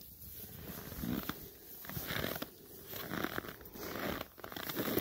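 Irregular crunching and rustling in straw bedding dusted with frozen snow.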